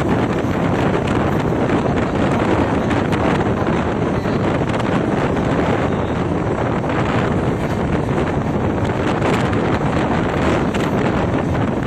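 Steady rush of wind on the microphone over the running noise of an express passenger train moving at speed, recorded with the phone held outside the coach.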